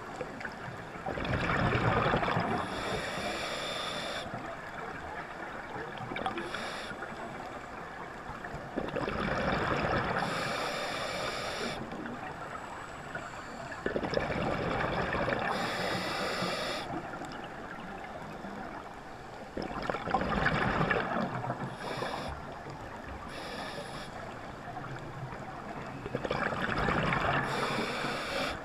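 Scuba diver breathing through a regulator underwater: about five breaths, each a bubbling exhalation and a hissing inhalation, every five to seven seconds.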